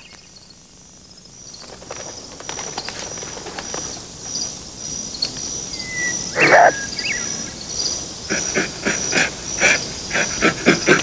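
Wild outdoor ambience: insects chirp in a steady high pulse. About six seconds in come a short whistle and an animal call, and near the end a quick string of animal calls.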